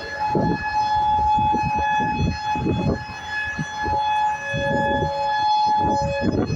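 Whelen 4004 electronic outdoor warning siren sounding a steady, unwavering alert tone during a scheduled test. Irregular low rumbles come and go underneath it.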